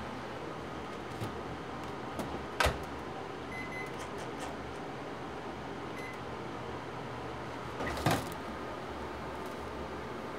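Steady hum of a running household appliance, with two short high beeps in the middle and sharp knocks about a quarter of the way in and near the end.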